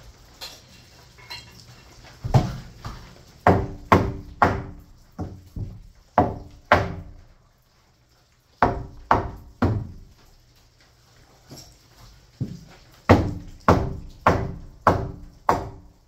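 Hammer driving nails into wooden framing overhead: two runs of sharp blows about two a second, each strike leaving a short ring, with a pause of a second or so in the middle.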